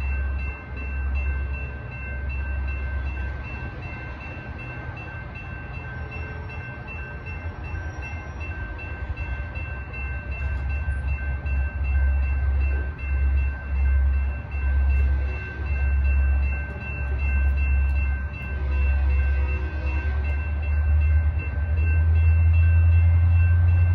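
Railroad crossing bell ringing steadily as the crossing signals flash and the gate arms lower, over a low rumble that swells toward the end. A locomotive horn starts right at the very end.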